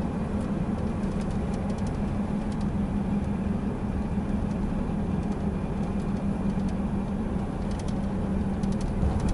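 A car driving along a road, heard from inside the cabin: a steady low drone of engine and tyres, with faint scattered ticks.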